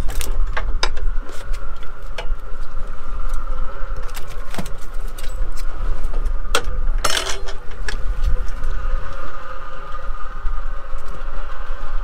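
Metal fishing gear clinking and clattering, snaps and hooks knocking against the boat's steel rail, in many short clicks with a louder clatter about seven seconds in. Under it a steady low rumble and a constant mechanical whine carry on throughout.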